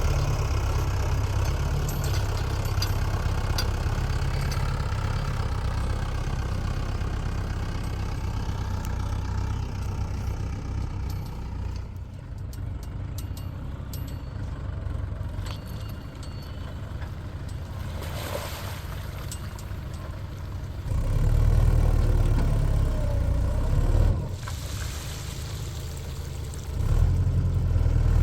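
Heavy diesel machinery engine running steadily, growing louder and deeper for about three seconds two-thirds of the way in and again near the end, with scattered faint clicks in between.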